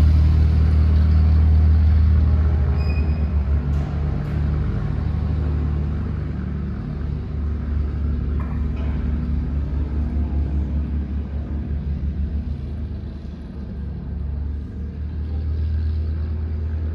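Britten-Norman Islander's two piston engines and propellers running as the aircraft taxis away: a low, pulsing drone that fades as it moves off, dips about two-thirds of the way through, then grows a little louder again near the end.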